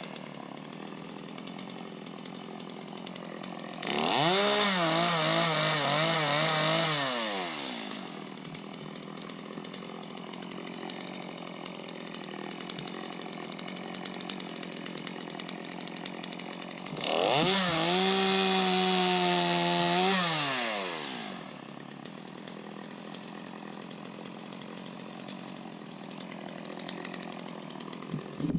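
Chainsaw idling, then revved up twice for cuts of about three to four seconds each, dropping back to idle after each; the pitch wavers under load during the first cut.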